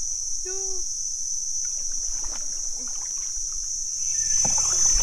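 Steady high-pitched drone of an insect chorus, with a kayak paddle dipping and splashing in the water underneath; the paddling noise grows louder about four seconds in.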